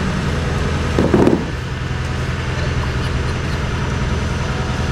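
An engine idling steadily, with a brief louder sound about a second in.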